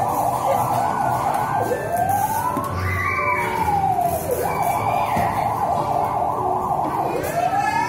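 A siren alternating between two patterns: a fast warbling yelp for the first second and a half, a slow wail rising and falling over about three seconds, the fast warble again, then another slow rise beginning near the end.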